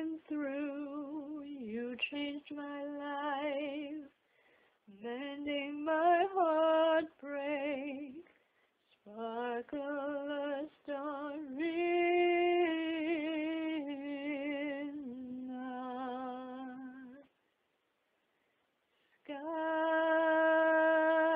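A woman singing a slow ballad alone, with vibrato, in phrases separated by short silences. About two seconds of silence come near the end, then a long held note.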